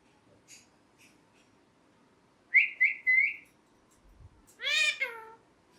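Ringneck parakeet whistling three short, clear notes, then, about a second and a half later, giving one louder call that rises and falls in pitch.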